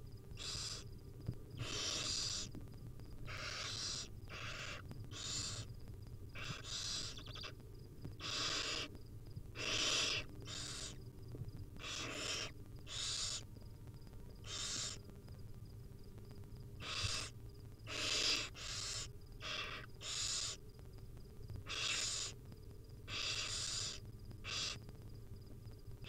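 Barn owl nestlings making their hissing, snore-like food-begging calls, short rasping bursts repeated irregularly about once a second, with some in quick pairs.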